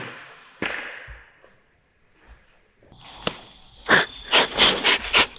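The sharp crack of a crossbow shot, fading at the start, then a second sharp smack under a second in. After a short near-quiet, a run of rustling, clicks and knocks as the hunters shift about in the tree stand.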